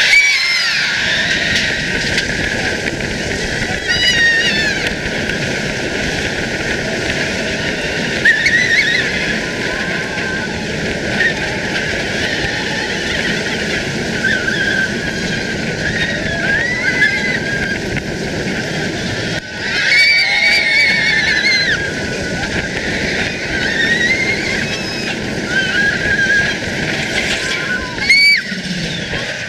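Roller coaster ride on the Furius Baco hydraulic launch coaster: a loud, steady rush of wind and train noise that starts suddenly. Riders scream again and again over it, loudest about twenty seconds in and near the end.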